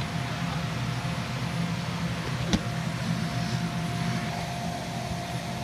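Steady drone of an inflatable bouncy house's electric air blower running, a low hum with a thin steady whine above it, and one sharp knock about two and a half seconds in.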